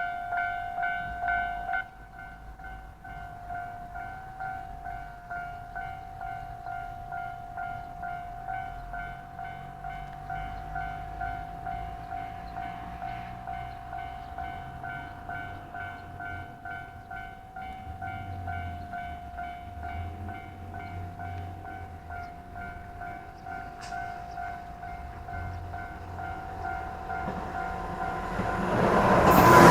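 Japanese level-crossing warning bell ringing in a steady repeated ding, dropping in level about two seconds in. Near the end a train approaches, its rumble rising quickly to the loudest sound.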